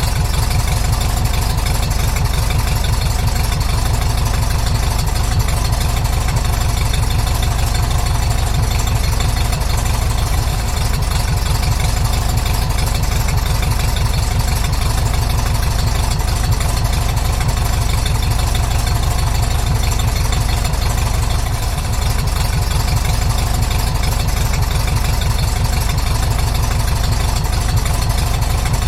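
Large-displacement car engine idling steadily, with an even low pulse.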